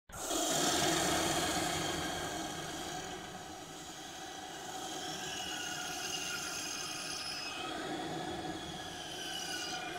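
A dramatic intro sound effect: a steady rushing noise with thin, high, whistling tones that slowly slide down in pitch. It starts suddenly and is loudest about a second in.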